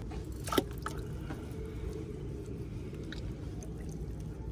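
Wet squishing as a mackerel's innards are pulled out by hand while gutting it, with one sharp click about half a second in.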